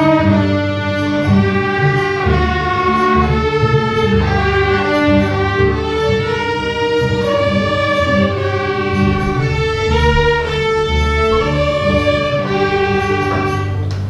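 Student string orchestra of violins, violas, cellos and basses playing a minor-key melody over sustained low notes, the notes changing in a steady rhythm; a brief pause comes near the end before the strings come back in.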